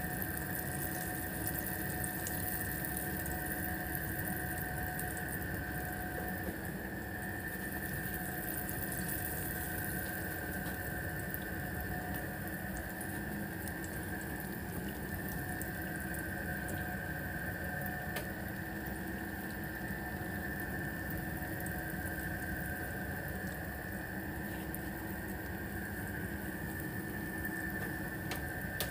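Small whole fish (mijun) deep-frying in a pan of hot oil: a steady sizzle with scattered fine crackles. A steady high whine runs underneath.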